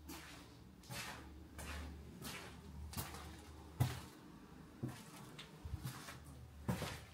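Faint footsteps crunching and scuffing over debris on a littered floor, about one step every three-quarters of a second, with a few sharper clicks among them.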